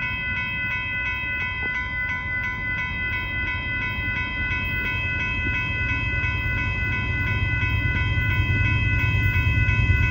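Railroad grade-crossing warning bell ringing in rapid, evenly spaced dings. Under it, the low rumble of an approaching freight train grows louder over the second half.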